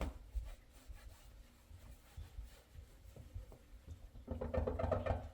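Microfiber rag wiping a car's rear window glass clean with rubbing alcohol: soft rubbing with light knocks, growing louder for about a second near the end.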